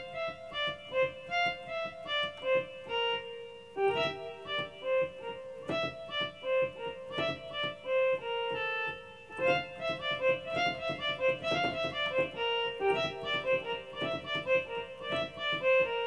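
Electronic keyboard played by hand: a quick melody of short notes in F, several notes a second, with the same figure repeated.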